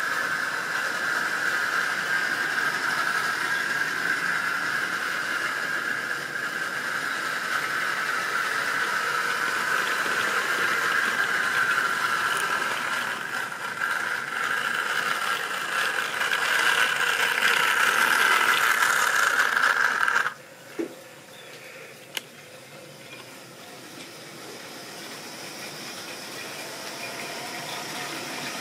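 Vintage OO-gauge model trains running on sectional track: a steady electric motor whine over rattling wheels that cuts off abruptly about twenty seconds in. After that, quieter running of a passing train, with two light knocks, building again near the end.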